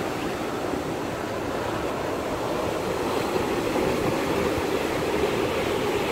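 Surf washing in over sand and rocks at the water's edge: a steady rush of waves that swells a little about halfway through, with a low rumble underneath.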